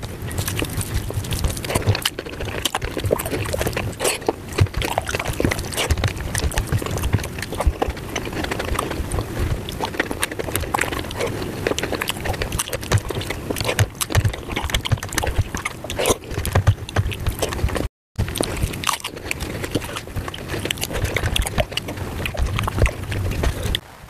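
Mukbang eating sounds sped up about five times: a rapid, dense chatter of wet chewing, smacking and squelching as rice and palak paneer are mixed by hand on a steel plate and eaten. The sound drops out briefly about three-quarters of the way through.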